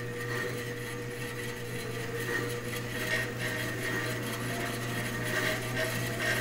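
14-inch Delta bandsaw driven by a 1.5 hp treadmill motor through reduction pulleys, running and being sped up with a triac controller: a steady low hum under a whine that rises slowly in pitch as the wheels gain speed.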